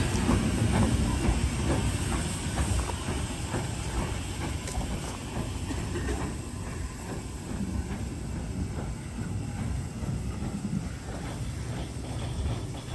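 Heritage railway train: a steady low rumble with hiss, a few clanks in the first few seconds, slowly growing fainter.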